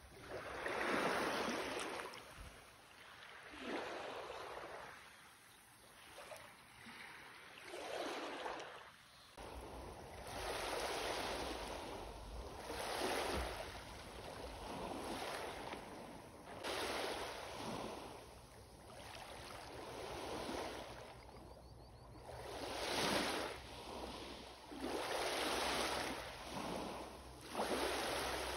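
Small lake waves washing in, each surge of water swelling and fading every one to three seconds. About a third of the way in, a faint steady low hum starts underneath.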